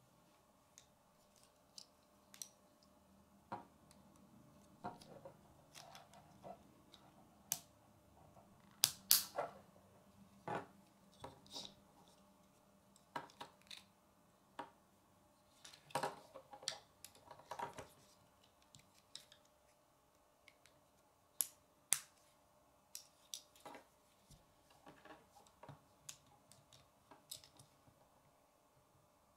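Plastic K'nex rods, connectors and gears clicking and snapping together as they are handled and fitted by hand. Irregular sharp clicks, with louder clusters about nine seconds in and again around sixteen to eighteen seconds.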